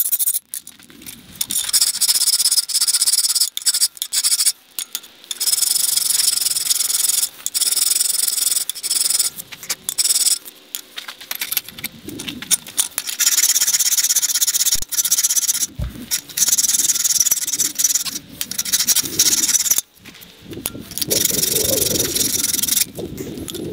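Repeated hand scraping and rubbing strokes on the workpiece, in runs of scratchy strokes broken by short pauses. There is a single low knock about two thirds of the way in.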